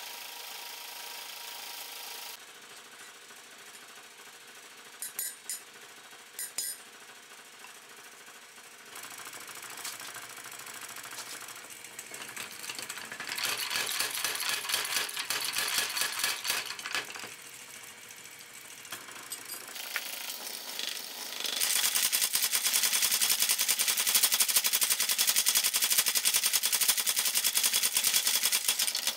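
Power hammer pounding a red-hot steel bar through a hand-held top tool in rapid repeated blows. There is a shorter run of blows around the middle, and a longer, louder run over roughly the last seven seconds. A steady shop hum is heard for the first couple of seconds, and there are two short knocks before the hammering starts.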